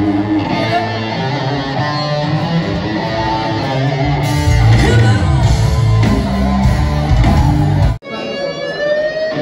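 Loud rock music with electric guitar over bass and drums. It cuts off abruptly about eight seconds in, and a new passage begins with a long, wavering note.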